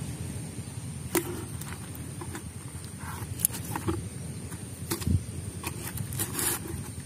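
Fresh fish being handled by hand in a plastic tub: scattered sharp knocks and slaps among rubbing and scraping, over a low handling rumble.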